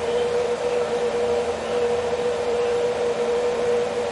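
Steady fan hum with a constant mid-pitched whine.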